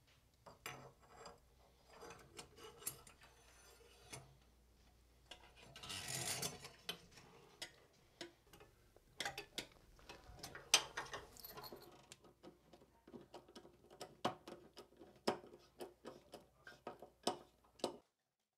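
Faint, scattered clicks, taps and scrapes of drain fittings being handled and fitted together, as a plastic slip-joint nut is threaded onto the brass drain pipe under the tub. There is a short rustle about six seconds in.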